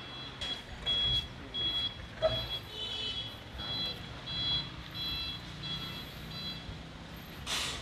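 A vehicle's reversing alarm beeping at an even pace, about two short high beeps a second, over a low rumble. The beeps stop near the end.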